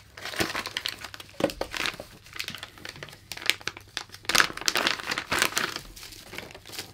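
Plastic packaging bags and wrap crinkling as they are handled, along with a cardboard box being opened by hand: irregular rustling with sharper crackles, busiest in the first two seconds and again from about four to five and a half seconds in.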